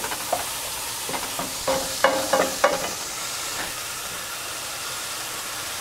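Sliced mushrooms sizzling in a non-stick frying pan, with a few short metallic clinks about two seconds in as a stainless pot lid is set down in the pan.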